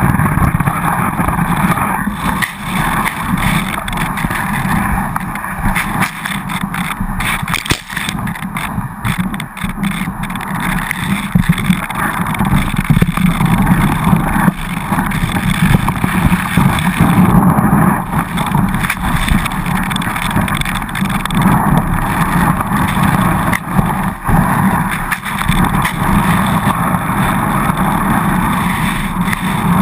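Skis sliding and scraping over snow at speed, mixed with wind rushing over the low-mounted GoPro Hero2. The noise is continuous, swelling and dipping, and grows louder about halfway through.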